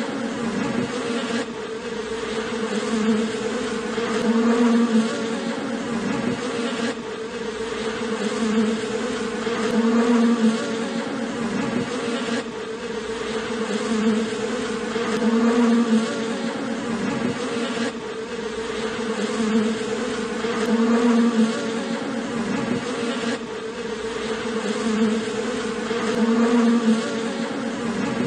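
Honeybees buzzing as a dense steady drone, swelling in loudness regularly about every five seconds.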